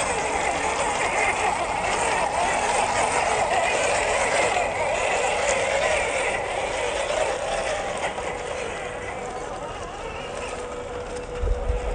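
Small-scale RC off-road truck's electric motor and gear train whirring steadily as it drives, with a gritty, ratchety gear noise. It eases off a little in the second half.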